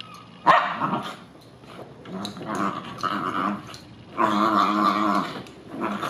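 Bichon Frise growling and giving short barks in several bursts while it rubs itself frantically against sofa cushions. This is the play-growling of a dog in a frenzy after getting wet.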